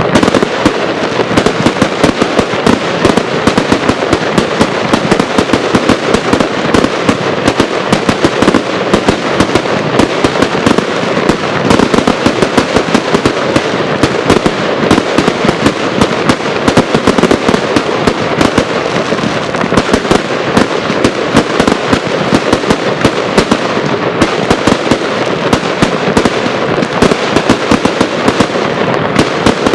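Fireworks display firing a dense, unbroken barrage of launches and bursts, many bangs a second.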